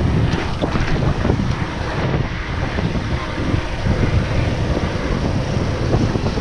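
Wind buffeting the microphone of a cyclist's body-mounted action camera while riding on the road at speed. It is a loud, steady rushing noise with an uneven, gusty rumble underneath.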